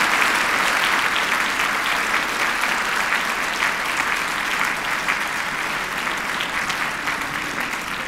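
A large seated audience applauding, many hands clapping together, the applause slowly dying down.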